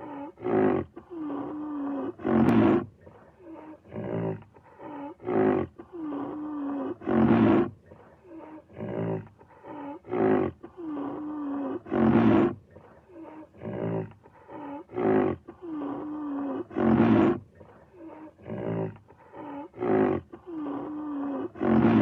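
Rhinoceros calling over and over: rough, deep calls every two to three seconds, some joined by a wavering moan, the whole sequence repeating in a regular cycle.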